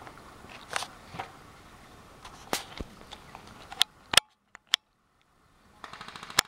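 Airsoft guns firing: scattered sharp single shots, then a short rapid burst of evenly spaced shots near the end.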